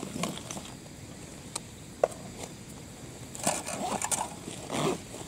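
Small objects being handled close to the microphone: a sharp click about two seconds in, then short bursts of rustling and clatter in the last two seconds.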